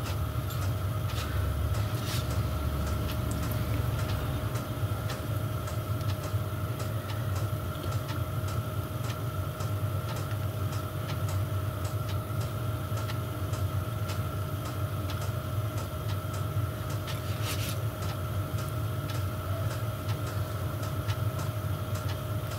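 Diesel space heater running steadily: a constant hum and low rumble with a regular faint ticking from its fuel dosing pump. Now and then a sharper click comes from small metal pump parts being handled.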